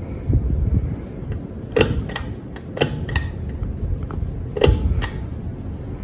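52-inch Monte Carlo Designer Max ceiling fan running with a steady low hum, while its pull-chain switch is worked three times, each pull giving a pair of sharp clicks.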